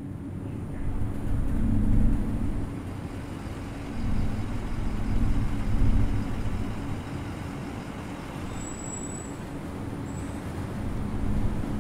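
A heavy truck's engine running, swelling louder about two seconds and again about six seconds in, with a brief high-pitched tone about nine seconds in.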